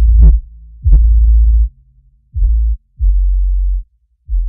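Electronic outro music: a string of deep bass notes, each held for up to about a second with short gaps between, some opening with a brief rising sweep.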